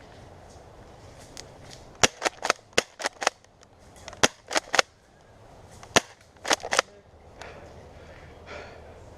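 Airsoft guns firing: about a dozen sharp shots in three or four quick volleys, between about two and seven seconds in.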